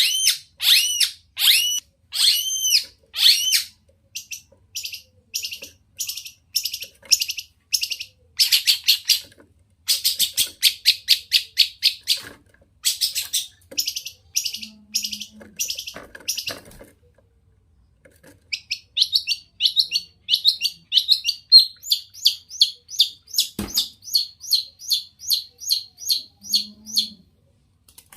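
Long-tailed shrike (cendet) in full song. It opens with a few arched notes, then gives fast runs of short harsh repeated notes, with a short pause about two-thirds of the way through.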